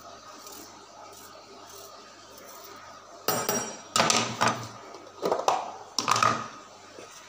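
Steel kitchen bowls and a knife knocking and clattering on the table as they are handled, a handful of loud knocks with a metallic ring starting about three seconds in and stopping shortly before the end.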